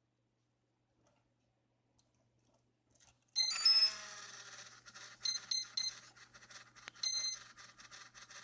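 Brushless yaw motor of a BaseCam-controlled gimbal making a noisy buzz with short high-pitched whining tones, starting suddenly about a third of the way in and flaring up again in several short bursts; the unwanted noise is the gimbal's yaw noise problem.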